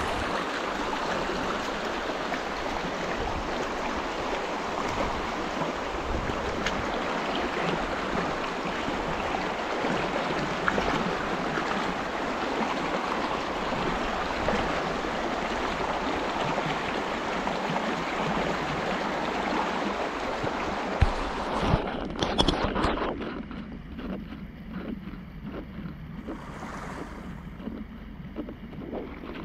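Shallow river water rushing over a stony bed close by, a steady rush. After a few knocks about three quarters of the way through, it falls to a quieter flow.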